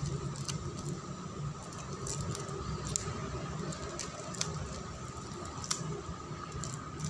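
Cellophane wrapper on a cigarette pack crinkling and clicking in scattered small bursts as fingernails pick at it, hunting for the tear strip, over a faint steady hum.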